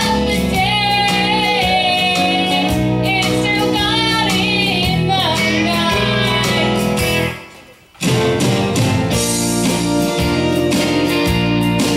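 A woman singing a revival song with guitar accompaniment, holding long notes with vibrato. About seven seconds in the sound drops away for under a second, then the guitar carries on strumming without the voice.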